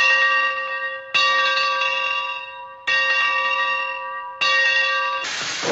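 A bell rung in repeated single strokes about a second and a half apart, each stroke ringing on with clear steady overtones and fading. Near the end a loud steady hiss starts.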